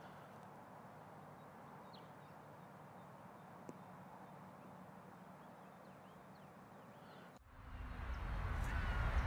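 Quiet open-air ambience with a few faint, sparse bird chirps. About seven and a half seconds in the sound changes abruptly to a louder, steady low rumble.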